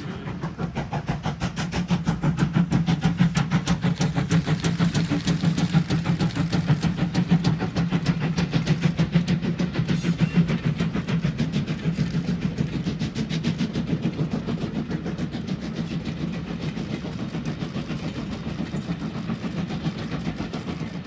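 The steam locomotive Foremark Hall, a GWR Hall-class two-cylinder 4-6-0, running past with a rapid, even beat of exhaust over a steady low rumble. It grows louder towards the middle and then slowly fades as it draws away.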